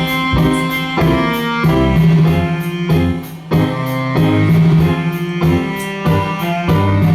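Instrumental introduction to a Thai song: a melody of separate notes, changing about twice a second, over a held low bass note.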